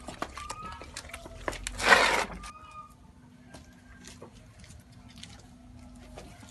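Liquid poured from a plastic bottle spattering and dripping onto a concrete floor, with a brief loud rush of noise about two seconds in. After that it is quieter: a steady low hum with a few faint bird chirps.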